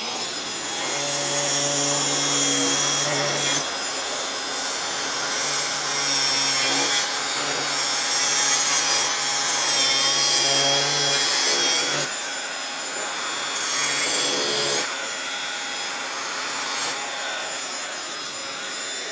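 Angle grinder with a diamond-rimmed disc cutting dry through the edge of a solid stone composite shower base, with a blower running on the cut. The cut grows louder in three passes, easing off between them and near the end.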